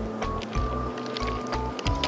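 Background music: a simple melody of held notes over a bass line that changes every half second or so.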